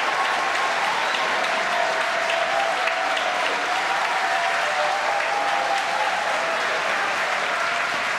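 Crowd applauding and cheering, a steady wash of clapping with voices mixed in.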